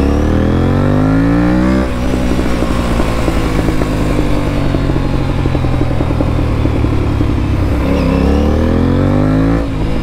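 Aprilia RS457's parallel-twin engine through an aftermarket stainless-steel full-system exhaust, an Akrapovic-style replica. The revs climb for about two seconds and drop off abruptly, the engine runs steadily for several seconds, then the revs climb again near the end and fall back.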